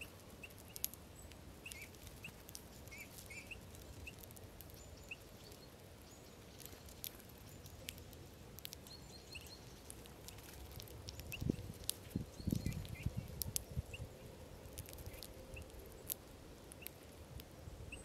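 A flock of Eurasian bullfinches feeding on sunflower seeds in snow: scattered short, soft calls and small clicks of pecking and hopping. A louder spell of low rustling and thumps comes about twelve seconds in.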